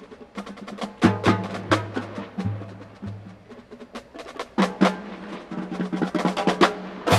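Marching band drum line playing a percussion passage: rapid, sharp snare and stick hits over low drum notes.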